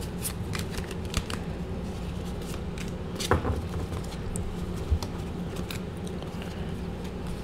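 A deck of tarot cards shuffled by hand: a run of soft card flicks and slaps, with two louder taps about three and five seconds in.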